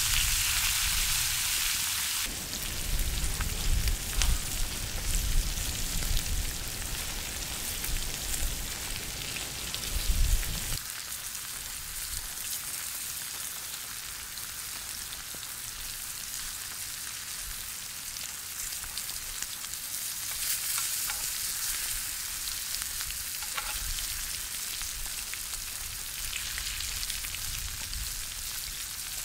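Pork chops sizzling steadily in a grill pan of melting garlic-herb butter over wood embers. A low rumble comes and goes during the first ten seconds or so and is the loudest sound then.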